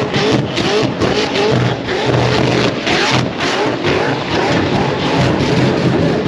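Burnout car's engine revving hard at high rpm, its pitch surging up in quick repeated pulls about three times a second, with crackling from the exhaust.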